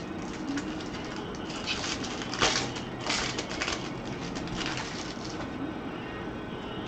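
Crinkling and rustling of trading-card pack wrappers and cards being handled, in several short bursts.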